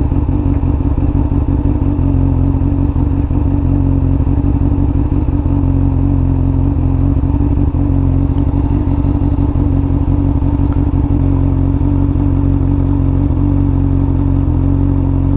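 Honda CBR600F inline-four engine idling steadily through an aftermarket Akrapovič exhaust, just after start-up and still warming up.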